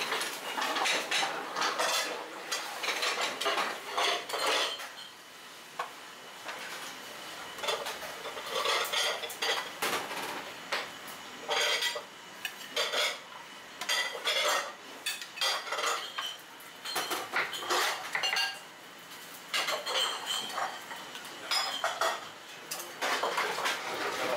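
Ceramic bowls, plates and chopsticks clinking and knocking against each other and a steel counter as a bowl of ramen is assembled, in short irregular bursts of clatter.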